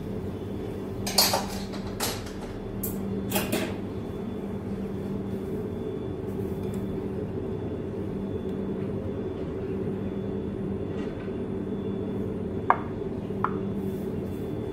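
A metal spoon clinking against cooking pans, a few loud clinks in the first four seconds and two sharp taps near the end, over a steady low hum.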